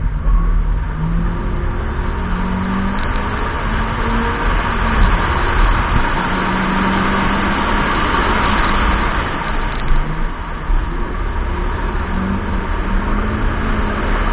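Honda CRX's 1.6-litre D16Z5 four-cylinder engine revving hard, its pitch climbing and falling several times as it is driven on the throttle and through gear changes, under a loud steady rush of wind and tyre noise.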